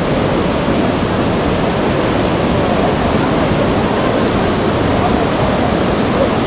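Niagara River rapids rushing, a loud, steady, even noise of churning white water.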